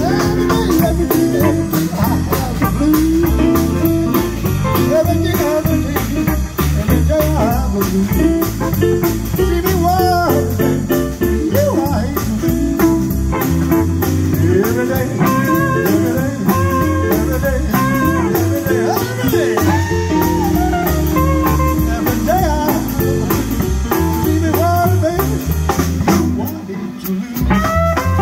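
Electric blues band playing live: lead guitar lines with bent notes over bass and drums, with a steady cymbal beat.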